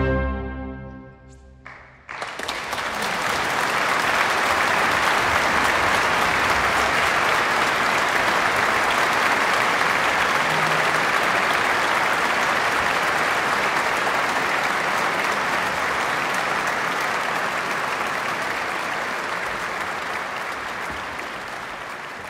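A symphony orchestra's final chord ends and rings out in the hall, and about two seconds in a large concert audience breaks into steady applause, which slowly fades near the end.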